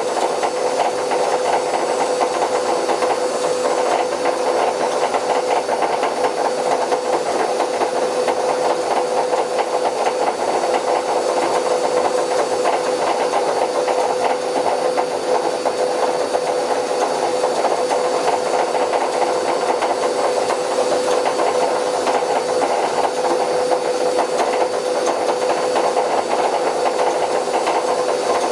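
Bauknecht WA Plus 844 washing machine's drum turning with a damaged drum bearing, giving a steady rough grinding with a constant hum. The grinding is the sign of the worn drum bearing.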